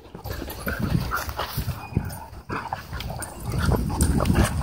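Several dogs play-wrestling at close range: a jumble of short growls, whines and yips with scuffling, getting louder near the end.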